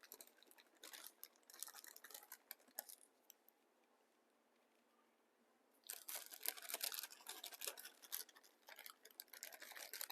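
Faint kitchen handling sounds: scattered light clicks, taps and rustles, broken by about two seconds of dead silence in the middle.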